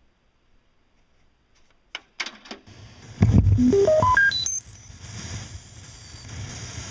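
A click, then, from a cassette tape playing through a stereo, a low thump followed by a quick run of electronic beeps that climb in pitch step by step up to a very high held whine.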